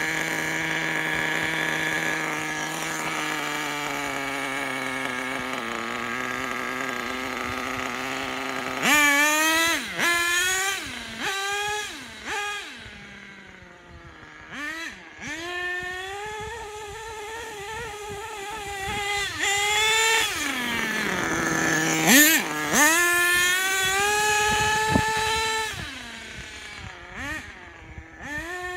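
Small nitro glow engine of an HPI Racing Monster ATV radio-controlled quad idling steadily for the first third. It then revs in a run of quick blips, rising and falling in pitch, and holds higher revs for a few seconds at a time, with one sharp rev about two-thirds of the way in.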